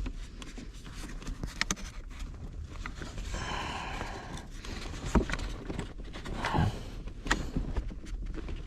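Plastic interior trim panel being pried open with a pry tool: scraping and rustling with a few sharp clicks and knocks as it works loose.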